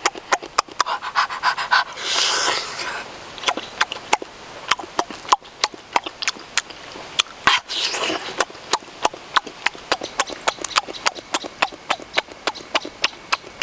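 Close-miked mouth sounds of a man eating a juicy peeled citrus fruit: wet lip smacks and chewing clicks, several a second, with two longer breathy slurps about two and eight seconds in.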